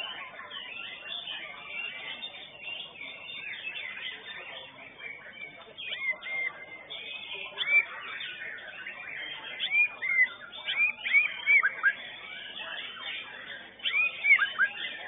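White-rumped shamas (murai batu) singing together in a busy, tangled chorus. Loud, clear whistled notes that arch up and down come in quick runs from about six seconds in and again near the end.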